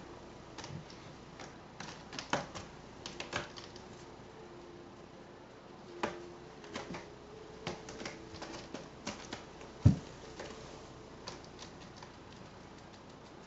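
Norwegian Forest cat clawing and batting at a sisal-rope scratching post, making irregular scratchy clicks and rasps. One dull thump, the loudest sound, comes about ten seconds in.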